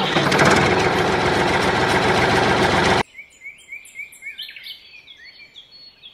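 A tractor engine sound runs loud and rough for about three seconds, then cuts off suddenly. After it, small birds chirp faintly, a short rising chirp repeated over and over.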